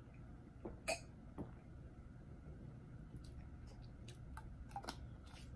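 A person's throat and mouth sounds after swallowing an energy-drink shot: a short, sharp throat sound about a second in, then faint clicking lip smacks while tasting it.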